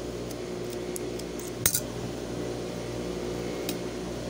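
Steel tailor's scissors handled on the sewing-machine table, with a few light ticks and one sharp metallic clack about a second and a half in as they are set down. A steady motor hum runs underneath.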